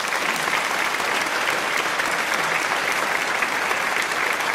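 Steady applause: many hands clapping at an even level.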